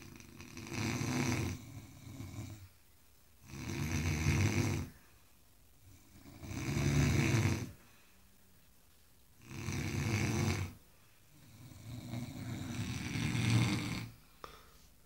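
Loud snoring from sleeping men: a long snore about every two to three seconds, each lasting about a second, with quiet breaths between.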